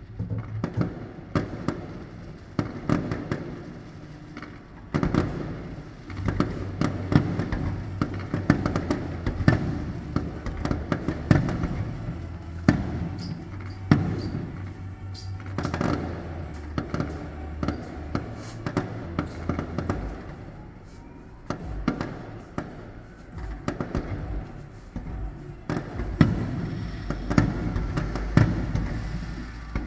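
Aerial fireworks going off: many sharp bangs and crackles in quick, irregular succession over a low rumble.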